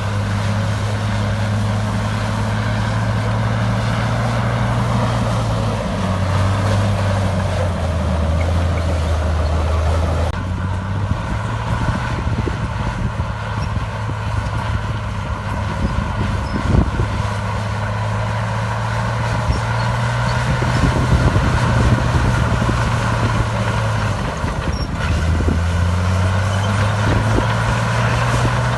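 Heavy diesel engine of earthmoving machinery working, its pitch sagging for a few seconds under load and then picking up again, with a single metallic knock a little past the middle.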